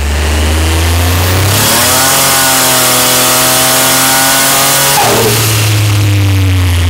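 Turbocharged 4.2-litre stroker Ecotec V6 running on E85, revved up about a second and a half in and held at high revs for some three seconds under a loud rush of turbo and exhaust noise. About five seconds in it drops off abruptly and falls back to a low, steady running note.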